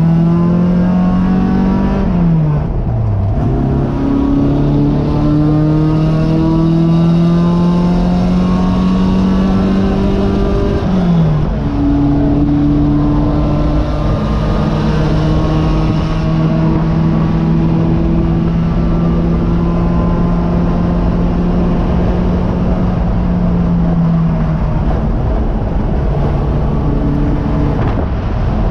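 Race car engine heard from inside the cockpit, running hard on track. The engine note falls away sharply about two seconds in and comes back up. It then climbs steadily under throttle, drops quickly at a gear change about eleven seconds in, holds a steady pitch for a long stretch, and eases lower near the end.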